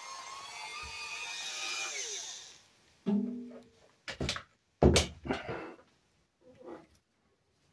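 Small high-speed rotary tool running with a shifting whine, then winding down and stopping about two and a half seconds in. After it come a few short, pitched sounds, the loudest about five seconds in.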